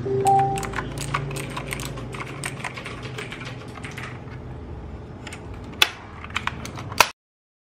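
Mechanical keyboard keys clacking as they are typed in a quick run, thinning out after about four seconds, with a few louder clacks near the end.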